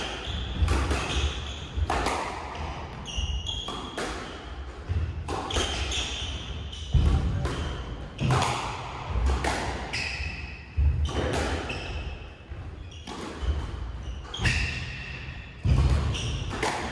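A squash rally: the ball is struck by rackets and smacks off the court walls in sharp, echoing knocks about once a second. Court shoes squeak briefly on the wooden floor between the shots.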